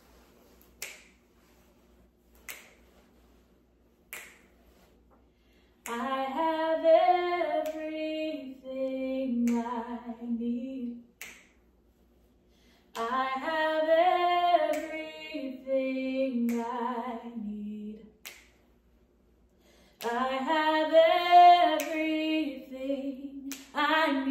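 A woman singing a gospel song unaccompanied, three phrases with short pauses between them, while finger snaps keep a steady beat about every second and a half. The snaps begin a few seconds before she starts singing.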